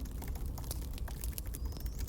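Campfire crackling: irregular sharp pops and snaps over a steady low rumble, with a faint rising whistle near the end.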